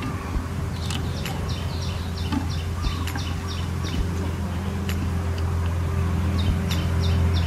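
Outdoor ambience of a steady low hum under runs of short high chirps, about three a second, with a few light clicks as the stick trigger of a brick-and-board deadfall trap is handled.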